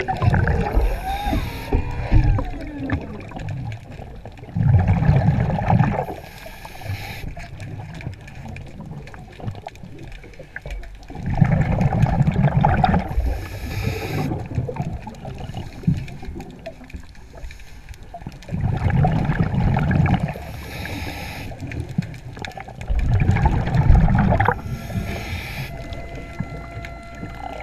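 A scuba diver breathing through a regulator underwater: about five slow breaths, each a loud low rush of exhaled bubbles followed by a short hiss of inhalation.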